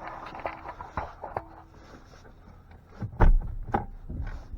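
Plastic clicks and knocks from a Mercedes C300's gear shifter being worked by hand with the shift-lock release button held down, moving it into neutral. A heavier thump a little past three seconds, with a second knock soon after.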